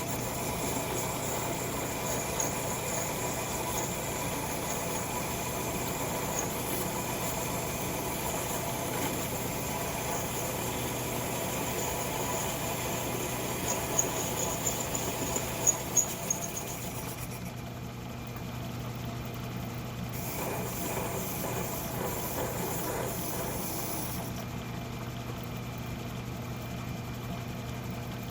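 Metal lathe running with a steady motor hum, cutting a small metal part; a high thin whine from the cut runs through the first part and stops, with a few sharp clicks shortly before it stops.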